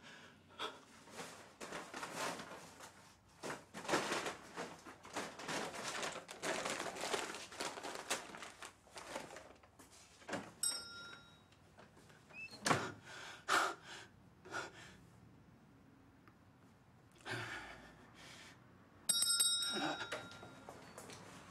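Knocks and rustling movement, with a thud about twelve seconds in. A small bell rings twice, about ten seconds in and again near the end, the second time louder.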